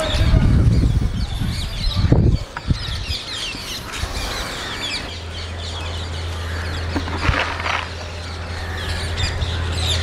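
Many birds chirping and calling at once, short quick calls overlapping each other. A low rumble sounds near the start and again about two seconds in.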